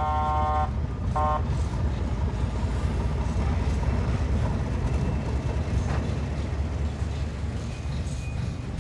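Diesel locomotive sounding its horn twice near the start, a longer blast then a short one, over the steady low rumble of its engine and wheels as it comes along the track. A single sharp clank about six seconds in.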